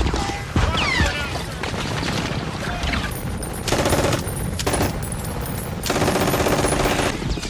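Bursts of very rapid machine-gun fire, three of them, the last and longest lasting about a second near the end, over a constant low rumble of battle. Sharp gunshot cracks come in the first second.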